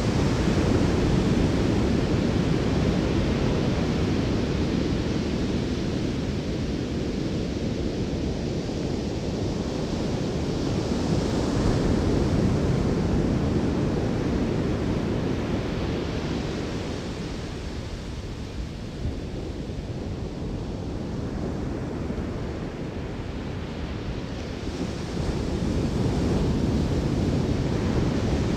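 Ocean surf breaking and washing up a sandy beach, a continuous low rushing that swells and eases in long surges, quieter for a few seconds past the middle and louder again near the end, with wind rumbling on the microphone.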